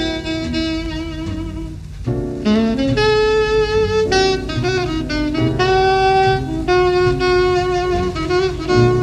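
Jazz recording: a saxophone plays a melodic line of held notes and quick runs over a low accompaniment.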